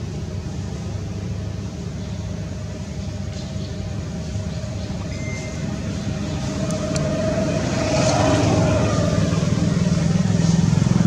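A motor vehicle's engine running steadily, getting louder from about eight seconds in.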